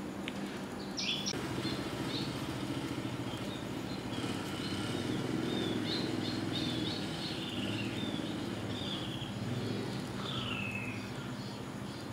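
Small birds chirping in many short, repeated high calls, with one longer falling call near the end, over a steady low mechanical hum.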